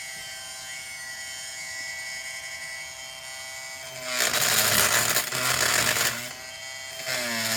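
Electric oscillating multi-tool running with a steady whine. About four seconds in, its pitch sags and a louder rasping noise comes in as the blade bites into the chair's fabric and padding. The load eases briefly, then the tool bites again near the end.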